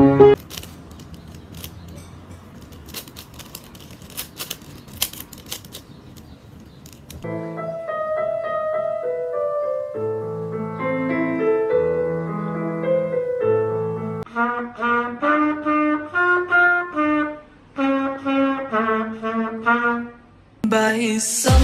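Faint background noise with scattered clicks for about the first seven seconds, then a piano played in slow notes and chords. About halfway through, a trumpet takes over with a melody of short separate notes and brief pauses, and a louder piece of music cuts in just at the end.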